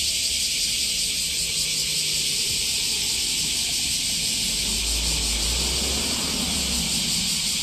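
A steady, even hiss, with a low hum underneath from about four and a half to seven seconds in.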